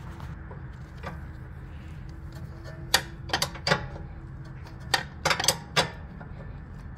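Steel wrenches clinking against the rear suspension bolts and arms of a Tesla Model 3/Y as the bolts are loosened: scattered sharp metal clicks, a few in quick runs around three seconds and again around five seconds in, over a steady low hum.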